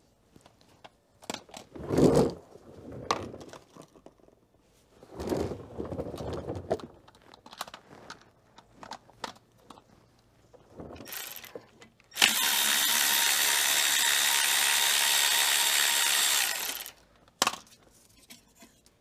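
A handheld power tool runs steadily for about five seconds, undoing a small bolt with a deep socket, after a few short knocks and tool-handling sounds.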